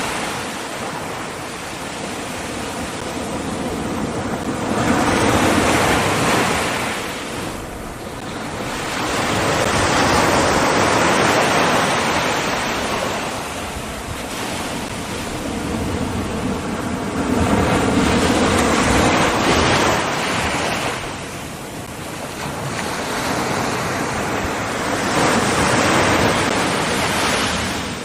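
Ocean surf: waves breaking and washing in, the hiss swelling and falling back about every six or seven seconds.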